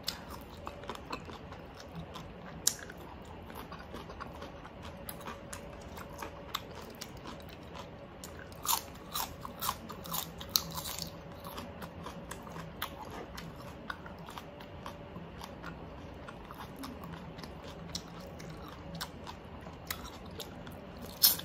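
Close-miked biting and crunchy chewing of raw cucumber and green onion: scattered crisp crunches, a run of sharper bites around the middle and one loud crunch near the end.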